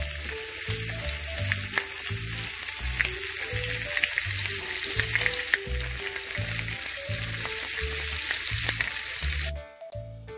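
Pork steaks frying in a hot pan, sizzling steadily under background music with a steady beat. Near the end the sizzling cuts off suddenly, leaving only the music.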